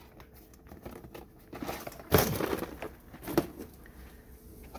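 A few scattered rustles and knocks. The loudest, about two seconds in, is a rustling clatter, and there is a short sharp knock a little after three seconds.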